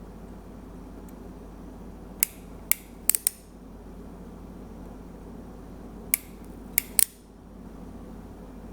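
Sharp clicks of a self-feeding soldering iron's ratcheting trigger advancing the solder wire, in two clusters of four or five clicks, over a steady low hum.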